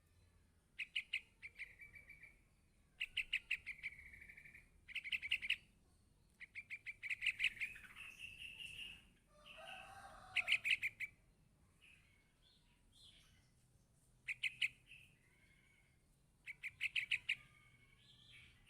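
Yellow-vented bulbul chick calling for its parent. Bursts of rapid chirps each run into a drawn-out high note, repeated about every two seconds.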